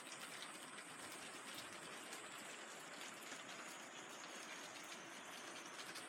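Light rain falling outdoors, a faint steady hiss with scattered small drop ticks.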